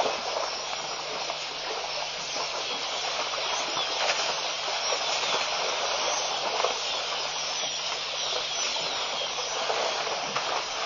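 A steady, even hiss with a faint low hum underneath and a few faint clicks scattered through it.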